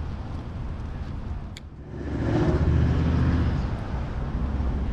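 Motor vehicle passing, its engine rumble swelling to its loudest about two seconds in and then easing off, over a steady low outdoor rumble. A single sharp click sounds just before the swell.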